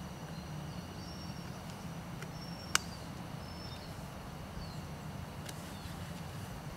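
Outdoor ambience: a steady low hum with faint high chirps, broken by one sharp click a little under halfway through.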